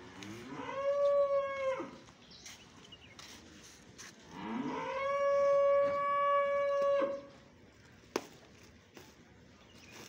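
Dairy cow mooing twice: a short call about half a second in, then a longer one of about three seconds starting around four seconds in. Each rises at the start, then holds on one pitch. A single sharp click follows near the end.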